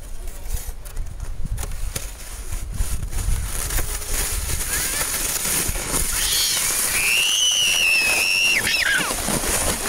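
A small child's long, high-pitched squeal, held for about two and a half seconds and falling off at the end, while riding a plastic sled downhill. Wind rumbles on the microphone throughout.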